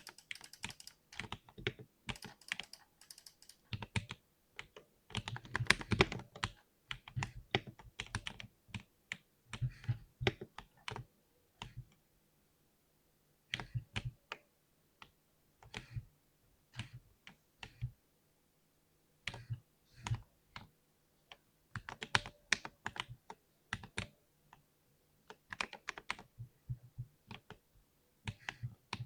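Mechanical keyboard with Cherry MX Silver linear switches being typed on in bursts of quick keystrokes, with short pauses between bursts.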